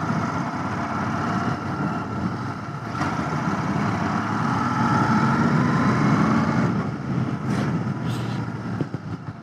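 Royal Enfield Continental GT 650's parallel-twin engine running as the motorcycle rides along at town speed. The engine note builds slightly through the middle, then eases off near the end.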